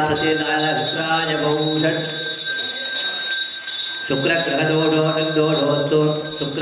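Hindu priests chanting Sanskrit mantras over the fire offering while a handheld pooja bell rings continuously. The chanting breaks off for about a second and a half midway, then resumes while the bell keeps ringing.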